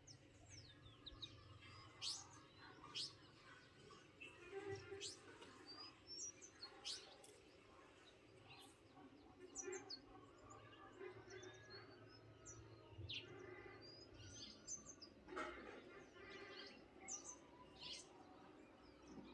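Birds chirping faintly, with many short, high calls scattered throughout.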